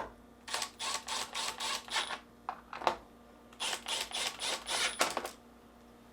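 Two screws driven into a refrigerator's center mullion hinge with a T15 Torx driver: two runs of short scraping clicks, about four to five a second, the second run starting about three and a half seconds in, with a single sharper click between them.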